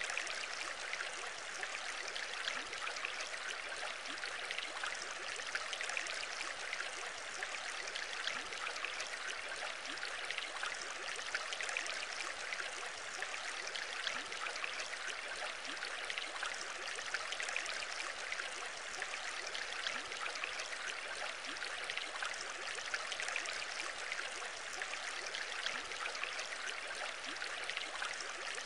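Steady bubbling and trickling of aquarium water, with a continuous fine crackle as air bubbles rise and break at the surface.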